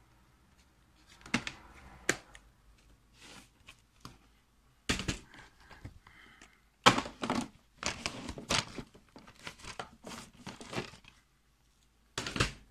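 Plastic DVD keep cases being handled on a wooden desk: irregular clicks and clacks as a disc is pressed onto the case's hub, the case is shut and the next cases are picked up and shuffled.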